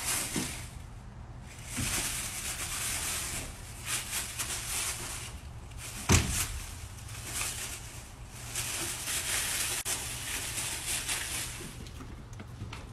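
Dry leaves rustling and crunching in uneven bursts as raccoons scuffle through them, over a steady low rumble. There are scattered clicks, and one sharp knock about six seconds in.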